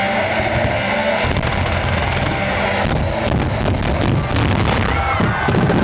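Loud music playing over a fireworks display, with fireworks bursting repeatedly from about three seconds in.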